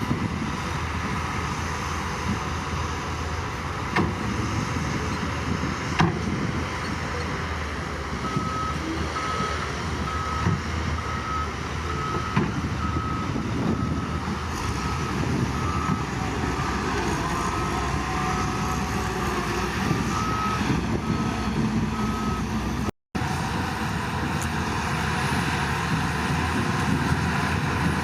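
Heavy diesel earthmoving machinery running steadily, with a reversing alarm beeping at an even pace for most of the middle. The sound cuts out for an instant about three quarters of the way through, then the engine noise carries on.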